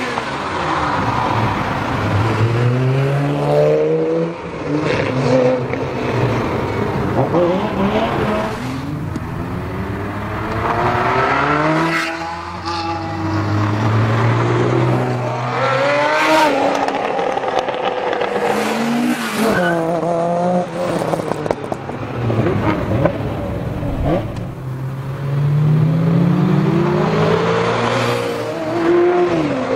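A string of Ferrari sports cars, among them a flat-twelve Testarossa and a V8 360 Spider, driving past one after another. Each engine revs up in a rising note and then drops away as the car passes, over and over.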